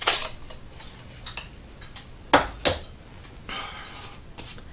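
A few sharp clinks and taps as a knife and a pocket sharpening stone are picked up and handled: one at the start and two close together about two and a half seconds in.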